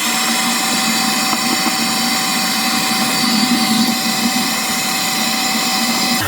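Hair dryer running steadily, a rush of air with a steady motor whine, switched on abruptly at the start. It is blowing into a refrigerator's defrost drain hole to melt the ice plugging it solid.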